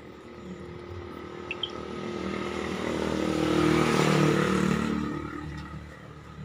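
A motor vehicle passing by: its engine grows louder to a peak about four seconds in, then fades away.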